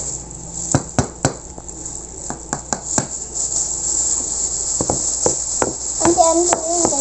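Scattered sharp taps and clicks of a spoon and whisk against mixing bowls, over a steady high hiss.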